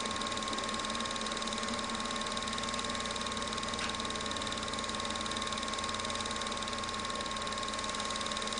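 Film projector running steadily: an even mechanical whir with a steady high tone over it.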